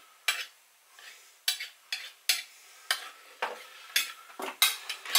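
A kitchen knife scraping around the rim of an enamel pie dish as it trims off the overhanging pastry, in a run of short strokes at about two a second.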